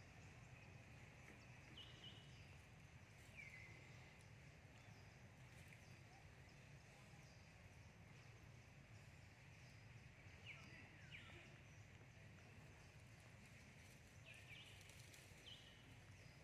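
Near silence: faint outdoor background with a few short, high chirps scattered through it.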